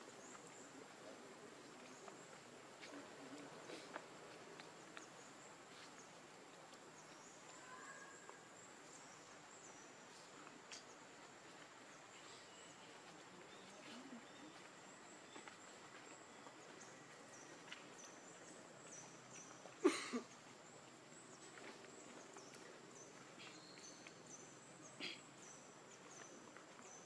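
Quiet outdoor ambience with many faint, short, high-pitched chirps scattered throughout. A single sharp click comes about twenty seconds in.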